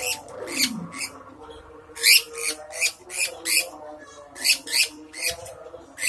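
A lovebird giving about a dozen short, harsh shrieks in quick runs of two or three. These are protest calls from a bird that is held in the hand and struggling.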